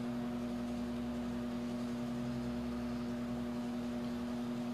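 Steady low hum with one strong tone and fainter evenly spaced overtones, over a light hiss.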